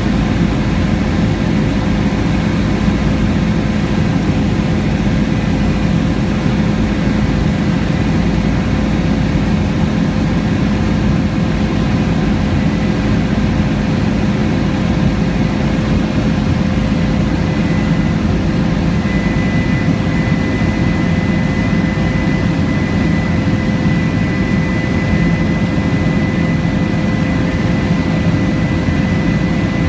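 Bell 407 helicopter heard from inside the cabin during its approach to land: a steady, loud drone of the turboshaft engine and rotors, heavy in the low end, with a steady mid-pitched hum. A thin, high steady tone joins about two-thirds of the way in.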